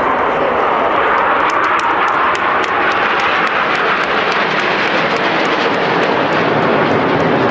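Jet engine noise from a formation of Aermacchi MB-339 jet trainers flying past overhead: a loud, steady, rushing roar.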